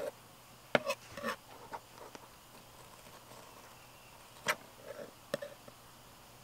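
A fillet knife clicking and scraping against a table while cutting the skin off a flounder fillet: a few sharp clicks in the first second, then more about four and a half and five seconds in.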